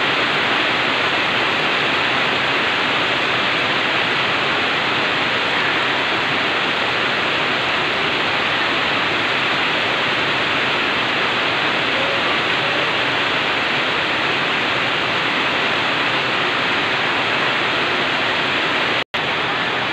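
Heavy rain pouring steadily, a dense, even hiss of water, broken by a split-second gap near the end.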